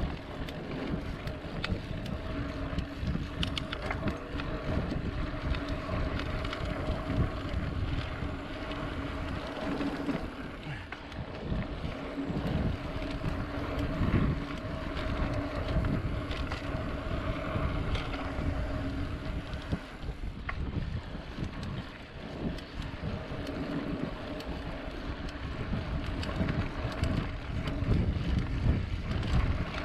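Wind rushing over the microphone of a mountain bike riding a dirt singletrack trail, with the bike rattling and knocking over bumps and a faint steady hum underneath.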